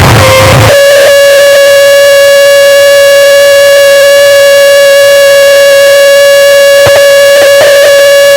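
Harsh noise music at full-scale loudness. A burst of dense noise cuts off under a second in to a single held, buzzy electronic tone, steady in pitch and rich in overtones, like a siren or horn note. A few glitchy clicks come through near the end.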